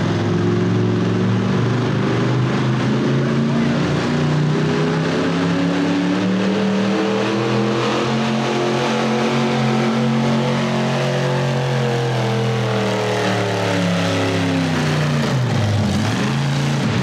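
Mega truck engine running hard at high revs, its pitch slowly rising and then easing off, with a quick drop and climb back up near the end.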